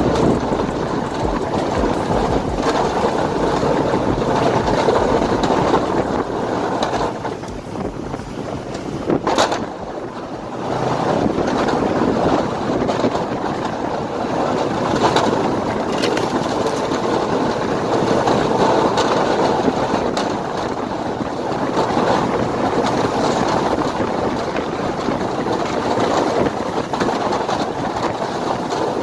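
Truck driving, with steady engine and road noise mixed with wind buffeting the microphone. A single sharp knock comes about nine seconds in.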